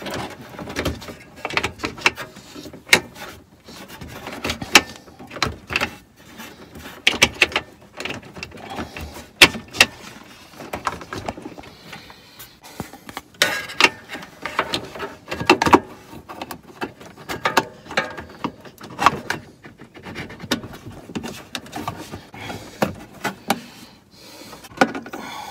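Irregular clicks, taps and rustles of hands working wires and twist-on wire nuts inside a pool heater's sheet-metal electrical box.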